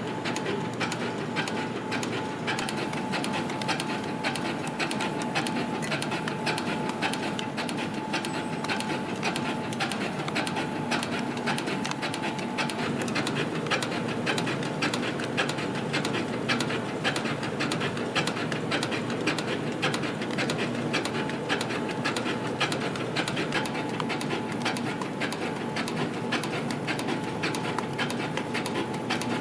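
CNC compression-spring coiling machine running continuously, coiling 0.4 mm wire into springs. It makes a fast, even clatter of clicks with a faint steady whine underneath.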